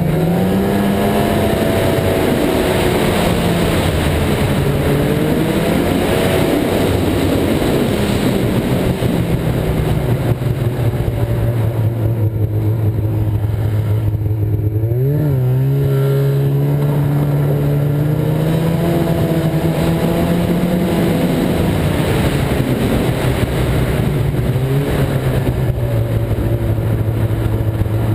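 Ski-Doo snowmobile engine running under throttle, its pitch rising and falling as the rider speeds up and eases off, with a quick rev up and back down about halfway through. A steady rush of noise runs beneath it.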